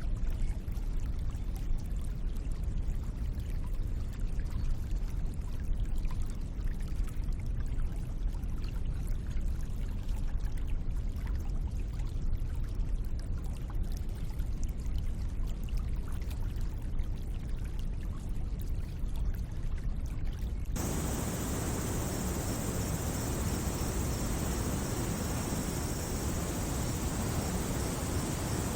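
Steady rushing of running water, heavy in the low end. About two-thirds of the way through it cuts off abruptly into a brighter, even hiss.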